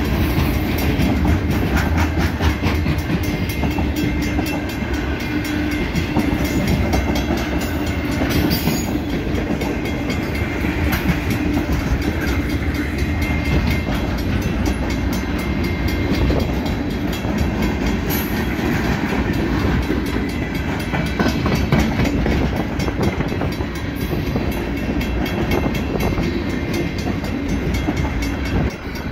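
Loaded freight train cars rolling past at close range: a steady rumble of wheels on rail with a continuous clickety-clack of wheels over the rail joints.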